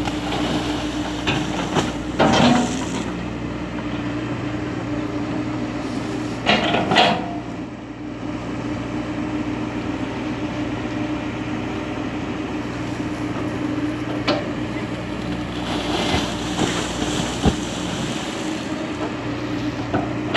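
Komatsu PC200 hydraulic excavator's diesel engine running steadily under load while the bucket digs soil. Several sharp metallic clanks and scrapes from the bucket and arm come through, the loudest about two and seven seconds in.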